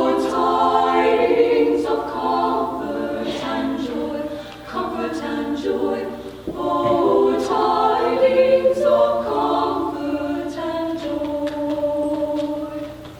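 High school madrigal choir singing in several-part harmony with held notes, pausing briefly between phrases around the fifth and seventh seconds.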